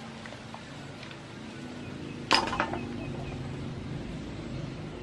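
Opened clam shells clinking together once, sharply, about two seconds in, as the clam meat is picked out of its shells.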